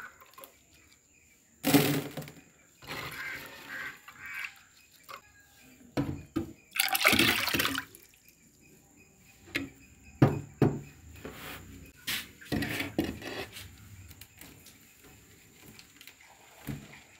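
Water sloshing and splashing in a clay pot as handfuls of washed small red onions are scooped out and dropped onto a woven tray, in separate bursts with short clatters between; the longest, loudest splash comes about seven seconds in.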